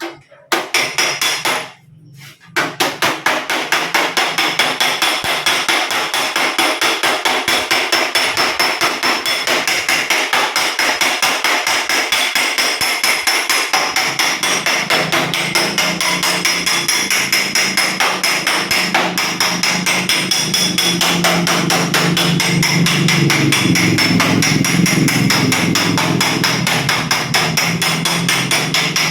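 Rapid, steady metal-on-metal blows, several a second, on a dented steel car body panel backed by a dolly: panel beating to raise the low metal. After a few blows and a brief pause, the striking runs on without a break.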